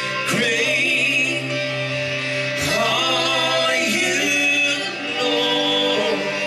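Background music: a song with a man singing long, wavering phrases over instrumental accompaniment.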